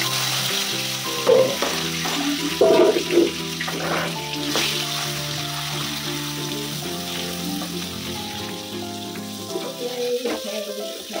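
Sliced onion and tomato sizzling in hot oil in a wok, with a few sharp knocks in the first few seconds as they are scraped in from the cutting board, then stirred with a wooden spatula. The sizzle fades gradually and drops off near the end.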